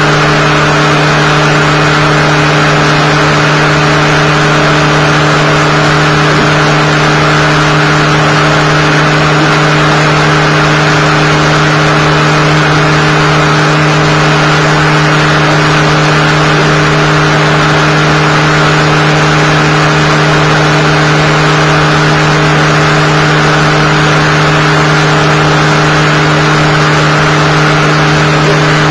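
Upright vacuum cleaner running steadily: a loud, even motor hum at one constant pitch.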